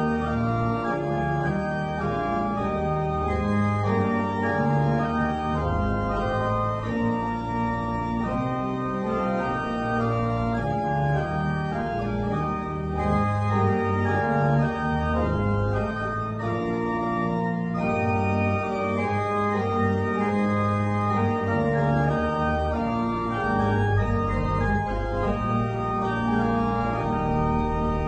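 Church organ playing a slow piece of sustained, full chords over a deep bass line that changes note every second or two.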